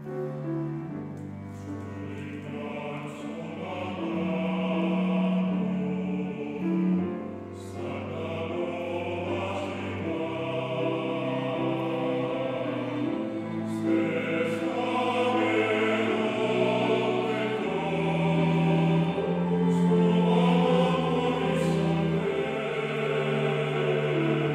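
Mixed-voice church choir, men and women, singing a sacred anthem in Korean with long held notes in several parts, growing somewhat louder in the second half.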